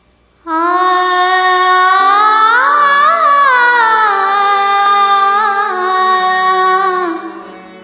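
Opening of a Marathi devotional song (abhang): a woman singing a long wordless phrase that rises and falls about three seconds in, over held backing notes. It fades down about seven seconds in.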